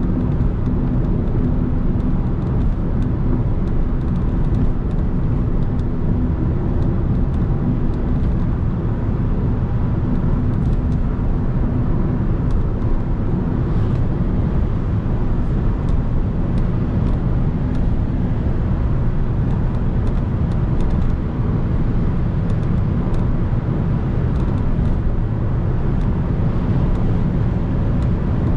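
Audi A3 driving at a steady highway speed: constant road, tyre and wind noise with a low engine drone, unchanging throughout, with a few faint ticks.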